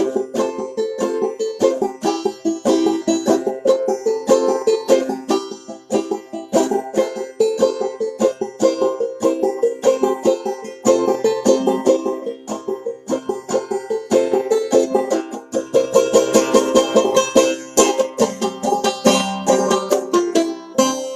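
Solo banjo played clawhammer style, an old-time instrumental tune with a quick, steady stream of plucked notes.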